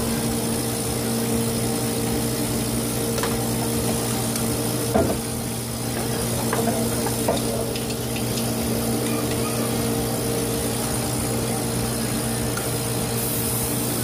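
Hermetic refrigeration compressor of a Farco display fridge running with a steady hum, a replacement unit that the technician suspects has failing valves (flappers). A few light clicks and knocks of the gauge manifold and hoses being handled come in the middle.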